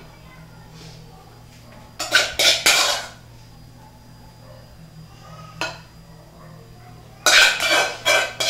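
A spoon scraping and knocking against a cooking pot as filling is scooped out. It comes in two quick runs of clattering strokes, about two seconds in and again near the end, with a single knock in between.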